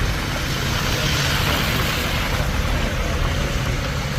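Vehicle engine idling: a steady low rumble with a faint hiss above it.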